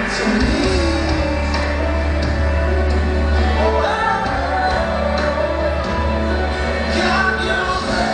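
Gospel worship song playing, a singer's voice over a band with a strong, steady bass.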